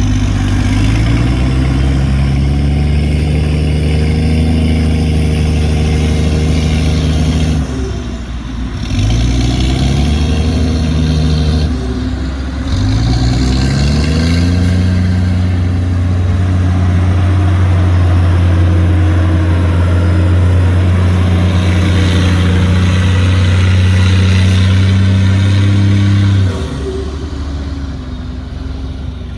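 A bulldozer's heavy diesel engine runs under load. Its pitch drops sharply and climbs back twice, about a third of the way in and again a little later, then it holds a steady hard pull until it drops to a lower, quieter run near the end.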